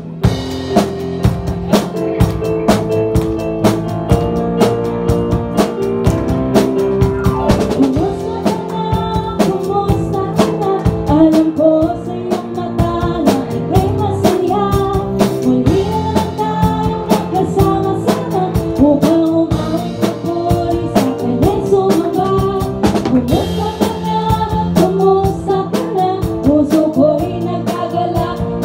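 Live worship band playing a welcome song: drum kit and electric bass, with voices singing Tagalog lyrics.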